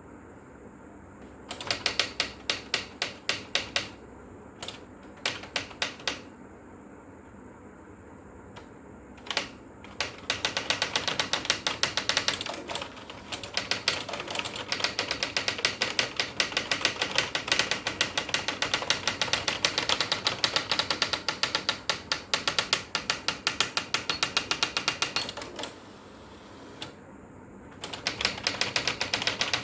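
Electric typewriter typing in quick runs of key strikes, about six a second, broken by short pauses, with one long unbroken run through the middle. A faint, steady high whine sounds in the pauses between runs.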